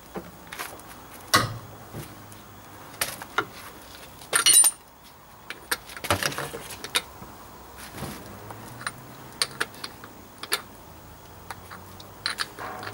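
Metal hand tools clinking and knocking in scattered sharp clicks, with a short, louder run of clicks about four and a half seconds in, as the front hub nut is being loosened.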